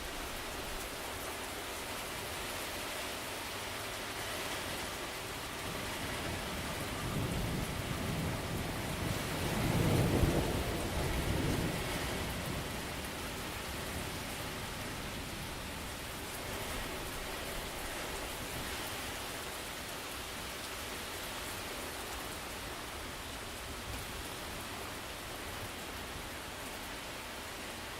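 Steady heavy rain falling, with one roll of thunder that swells and rumbles for several seconds about ten seconds in before fading back under the rain.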